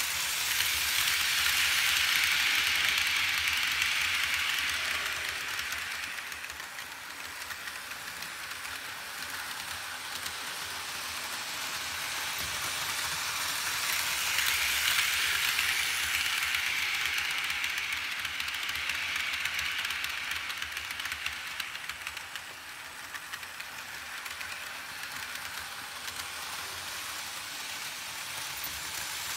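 Märklin HO model train, a Class E424 electric locomotive with tin-plate coaches, running on metal M-track: a steady rattling hiss of wheels and motor that swells twice as the train comes past and eases as it runs round the far side of the layout.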